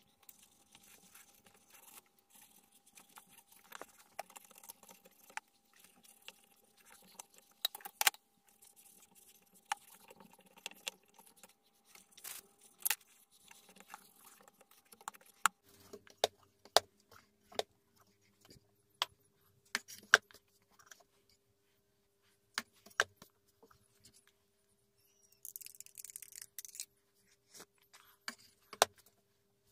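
Scattered sharp clicks and knocks of a small dovetailed wooden wall box being handled: its door on steel hinges knocking and metal tools clinking as they go in and out, over a faint steady hum.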